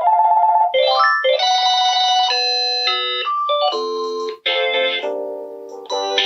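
Panasonic KX-TGE633M cordless handset playing its ringtone previews through its speaker: short, bright electronic melodies, with one tune cutting off and the next starting every second or two as the ringtones are stepped through.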